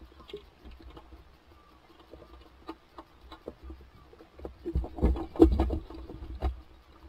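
Knocks, thumps and rubbing of hands and gear against the side of an inflatable boat, loudest in a cluster a little past halfway, over a low rumble of wind and water.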